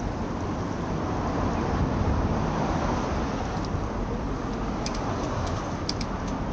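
City road traffic noise: a steady rush of vehicles that swells about two seconds in, as a car passing would, with a few light clicks near the end.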